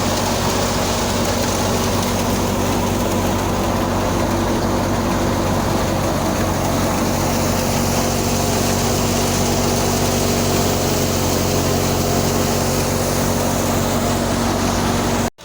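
Engine of wheat-harvesting farm machinery running steadily at constant speed, with a low, even drone; it drops out abruptly near the end.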